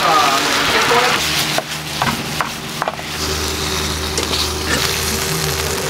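Beaten egg sizzling on a hot cast-iron sizzle platter, loudest at the start, with a few sharp clicks in the middle.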